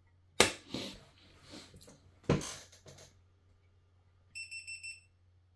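Fusion splicer's heat-shrink oven lid being pressed shut, with two sharp plastic clicks. Near the end the splicer gives a quick run of about six short electronic beeps.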